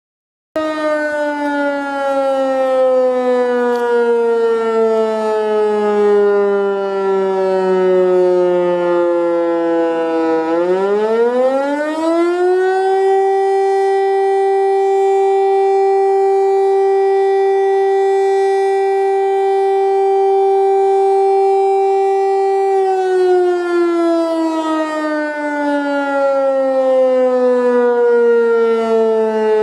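Fire-brigade alarm siren sounding: its tone falls slowly for about ten seconds, climbs quickly, holds steady for about ten seconds, then slowly falls again. This wailing cycle is the alert that calls out the volunteer firefighters.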